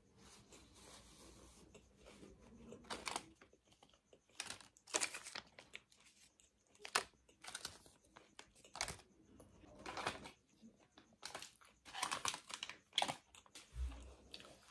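Crinkling and rustling of crumpled foil chip pouches being handled and shaken, in irregular bursts, with a short low thump near the end.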